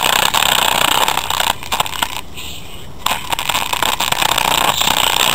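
An old stock car speaker, overdriven by a Panasonic head unit bridged to about 100 W, plays the music as a harsh crackling distortion. It sags about a second and a half in, comes back a second and a half later, and cuts off suddenly near the end as the speaker gives out.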